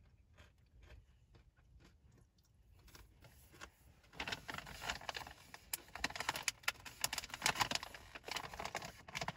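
Chewing of crunchy pretzel crackers together with crinkling of food packaging. It is faint at first, then the crisp clicks and crinkling get louder and denser from about four seconds in.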